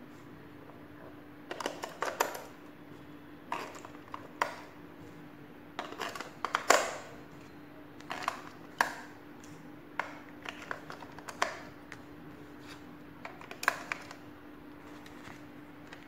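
AA batteries being pressed one by one into the plastic battery compartment of a toy drone's remote control: irregular sharp clicks and clacks of the cells against the spring contacts, the plastic and each other, over a faint steady hum.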